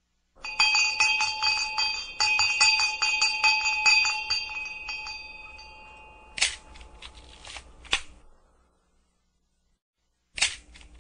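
Sharp mechanical clicks: first a fast run of about five a second under a high metallic ringing that fades after a few seconds, then single louder snaps, two of them about a second and a half apart and another near the end.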